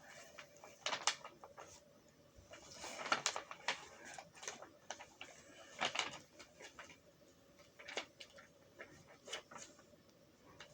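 Irregular clicks, taps and rustles of small objects being handled, over a faint steady hum.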